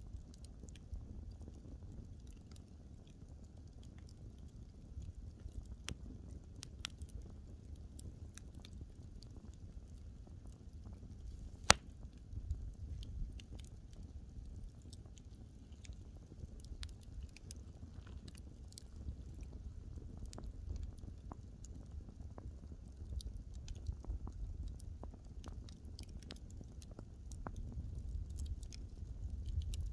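Wood fire burning: a low steady rumble of flame with scattered sharp crackles and pops from the burning wood, one pop much louder than the rest about twelve seconds in.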